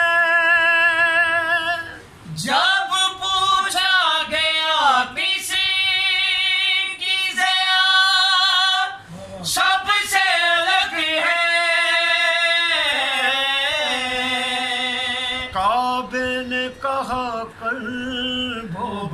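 A man singing Urdu devotional verse without accompaniment, holding long, high, wavering notes. He breaks briefly for breath about two seconds in and again about nine seconds in.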